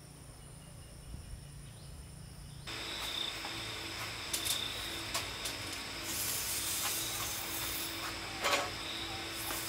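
Faint insect chirring, then, after a sudden change about a third of the way in, a steady hiss with a few light taps and knocks of pencil and straightedge on a rough wooden slab as it is marked out.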